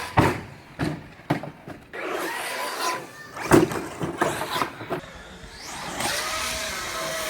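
Large electric RC car's motor whining, rising and falling in pitch as it is driven, with several sharp knocks as the car hits the ground, the strongest about three and a half seconds in.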